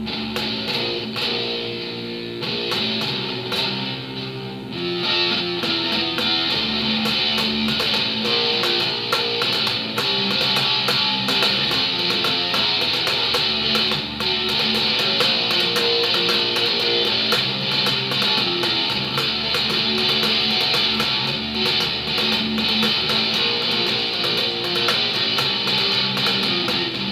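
Electric bass guitar played fingerstyle in a rock piece; the music grows louder and fuller about five seconds in.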